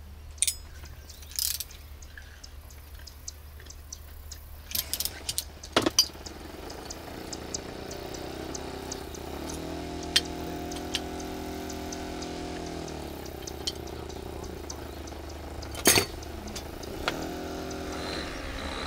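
Hand tools and small metal engine parts clicking and clinking on a work bench as a model helicopter glow engine is taken apart, in scattered sharp clicks. A steady pitched hum comes in about halfway through and fades a few seconds later.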